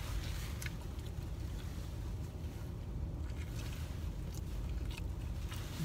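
Steady low rumble in a car's cabin, with faint soft clicks of someone chewing a sandwich.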